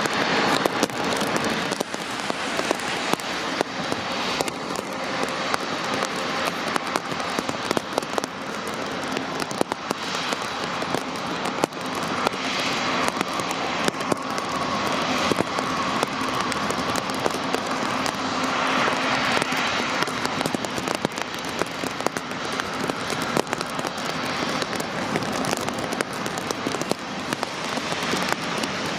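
Heavy rain pattering, a dense run of raindrop clicks, with the whine of an Airbus A350-1000's Rolls-Royce Trent XWB engines at taxi power. The engine tone swells in the middle as the jet passes closest, then eases.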